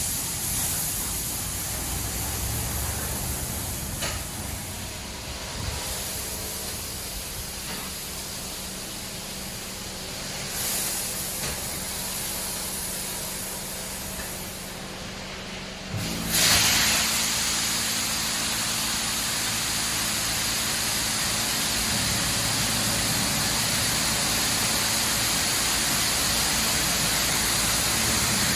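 Superior Sidetrac 700 touch-free car wash spraying water, a steady hiss of spray with a low hum underneath. About sixteen seconds in the spray turns suddenly louder and stays that way.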